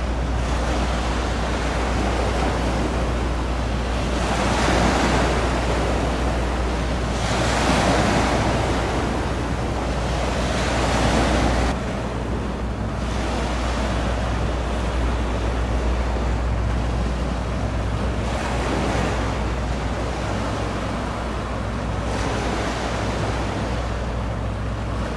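Water washing and lapping in surges that swell and fade, with wind on the microphone over a steady low rumble. The sound changes abruptly about twelve seconds in.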